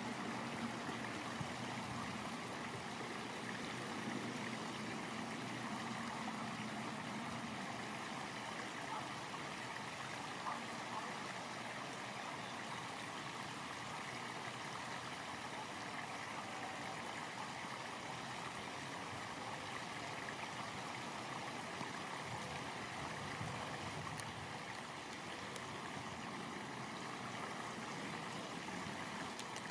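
Steady, even rushing background noise.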